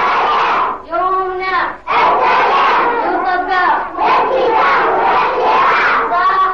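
A group of young children shouting a chant together, in about four short phrases with brief pauses between them.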